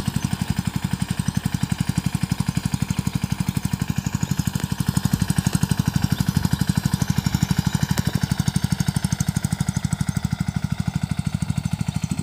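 Single-cylinder diesel engine of a 10.5 HP Sanedo mini tractor running steadily with a rapid, even beat while pulling a tined cultivator through the soil between crop rows.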